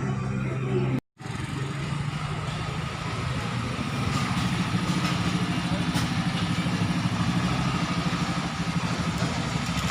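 A motor vehicle's engine idling steadily, close by, with a fine rapid pulsing. It starts after an abrupt cut about a second in, which ends a stretch of music.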